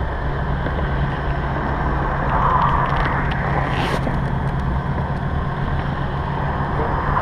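A steady low motor hum under a wash of noise, with a few faint clicks about three to four seconds in.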